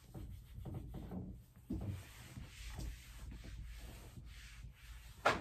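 Eraser rubbing old marker notes off a dry-erase whiteboard in uneven strokes, with one sharp knock a little before the end.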